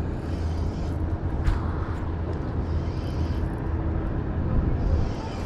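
Steady low engine-like rumble with a faint steady hum over it, and a single short click about a second and a half in.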